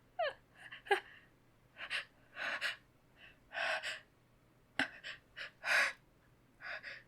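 A woman's pre-sneeze hitching breaths: a string of short, breathy gasping in-breaths about a second apart, with fainter catches between them, as the sneeze builds and does not yet come.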